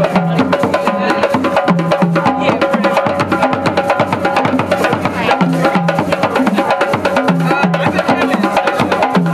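Several tall rope-tuned drums played together in a fast, steady rhythm: deep drum tones under quick, sharp strokes with no pause.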